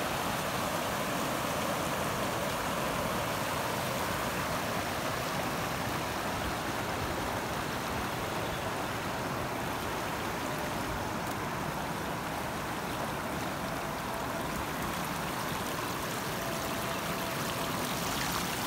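Muddy Indus floodwater rushing through a breach in a low stone wall and spilling over the stones: a steady rushing of water.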